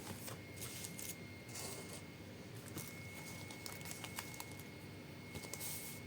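Faint rustling of blind bag packaging being handled and opened, in soft scattered bursts with a few light clicks.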